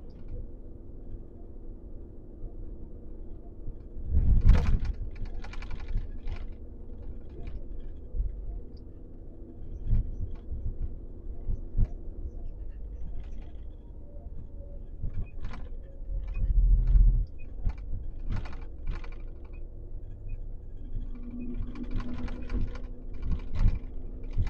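Steady low engine and road rumble inside a moving truck cab, with irregular clicks and knocks scattered through it, some in quick runs. Heavier thuds come about four seconds in and again around sixteen to seventeen seconds in.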